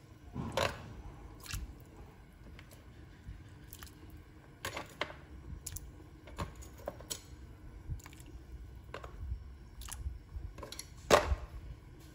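Scattered soft clicks and ticks, irregular and at times a few a second, with louder ones about half a second in and near the end, from a pot of water with pork neck bones, daikon and carrots heating on the stove, small bubbles just starting to form.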